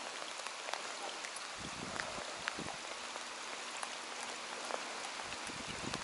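Steady rain falling on the lake and the boat: an even hiss scattered with many small drop ticks.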